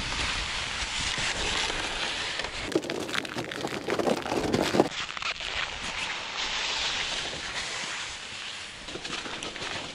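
Strong wind buffeting the microphone while the fabric of an ice-fishing tent rustles and flaps as it is taken down and folded. The handling gets louder and rougher from about three to five seconds in.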